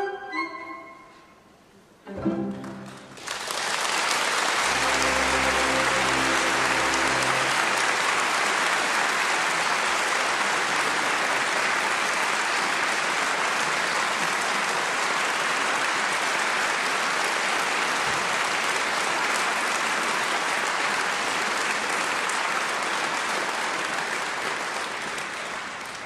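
An orchestra finishes a passage, then plays a last chord about two seconds in that is held for a few seconds. An audience breaks into steady applause over it and keeps clapping for the rest, tapering off near the end.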